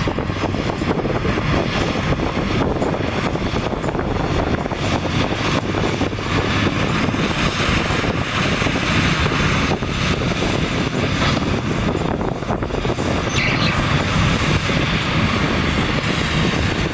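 Heavy diesel earthmoving machinery running steadily, a continuous rumbling engine and mechanical noise.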